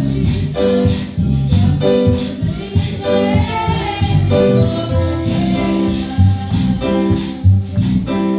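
Christian praise song (alabanza) music with a steady, repeating beat and a strong bass line.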